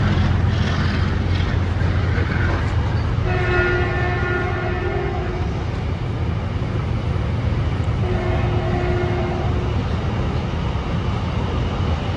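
Double-stack container freight train rolling past with a steady low rumble. A train horn sounds two long blasts, one about three seconds in and one about eight seconds in, each nearly two seconds long.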